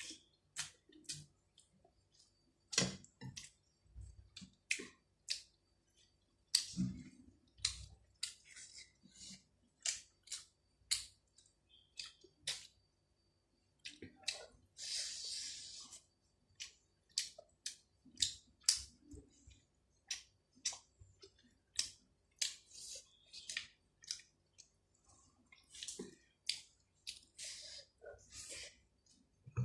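Close-up eating sounds of a person eating rice and chicken curry: irregular wet mouth clicks and smacks while chewing, with a short hiss about halfway through.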